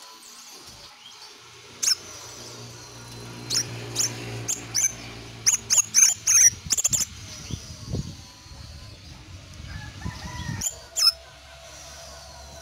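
Caged crimson sunbird calling in a run of short, sharp, high chirps, bunched thickly a few seconds in, with a few more near the end.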